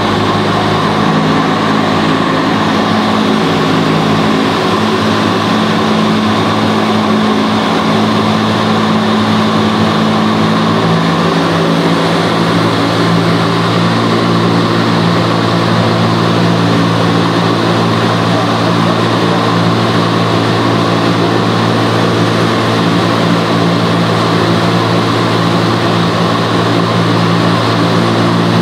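Vertical wind tunnel running at flying speed: a loud, steady rush of air up through the flight chamber over a low fan hum.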